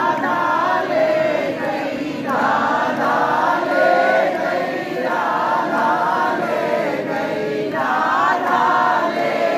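Many voices chanting together in long sung phrases, with crowd noise beneath.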